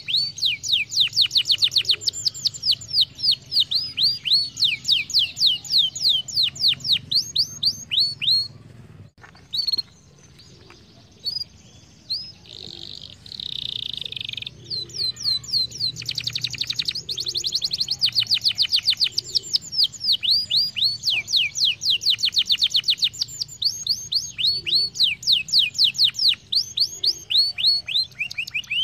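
Canary singing long, rapid trills of quick downward-sweeping whistled notes. It breaks off for a few seconds partway through, gives a short harsher note, and then resumes trilling.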